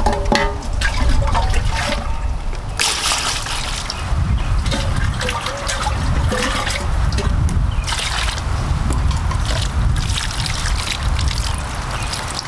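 Water splashing and trickling in uneven surges, over a steady low rumble.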